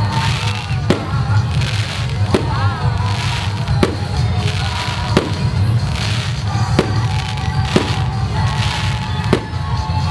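Fireworks display: aerial shells bursting in sharp bangs about every second and a half, with hissing crackle from the glittering stars between bangs, over a steady low rumble.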